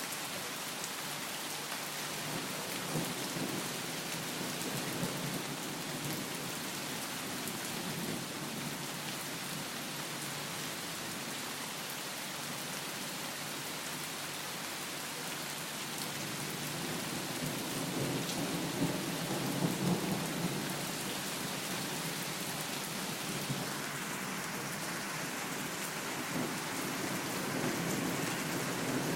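Heavy rain falling steadily, with low rolling thunder: a brief rumble about three seconds in, a longer, stronger roll a little past the middle, and another swell near the end.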